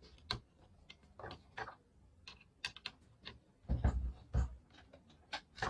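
Irregular small clicks, taps and scrapes of a thin metal tool working a brass harmonium reed on its wooden reed board, with a few duller knocks about four seconds in.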